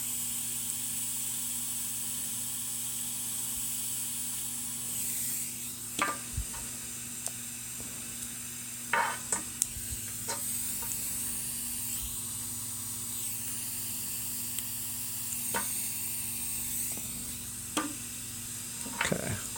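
Steady faint hiss with a low electrical hum, broken by a few sharp clicks and taps of tools on a circuit board while a mouse microswitch is desoldered with a soldering iron.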